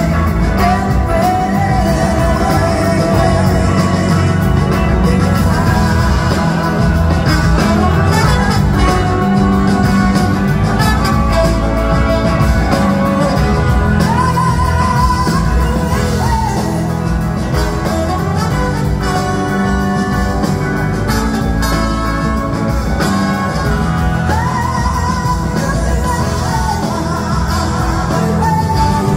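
Live blues-rock band playing loud, a woman singing lead over electric guitar, drums and backing singers, heard through a phone from the audience.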